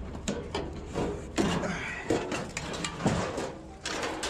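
Metal clanking and rattling from an old, falling-apart barbecue grill being handled and lifted, with a string of irregular knocks and clatters.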